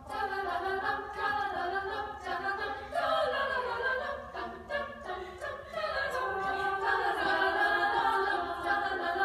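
Women's choir singing, several voices in harmony.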